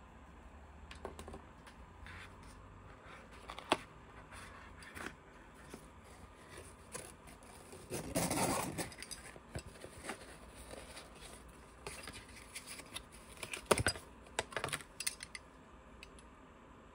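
A metal medal and its cardboard display box handled as the medal is lifted out: scattered light clicks and scrapes, a longer rustling scrape about halfway through, and a cluster of sharp clicks near the end.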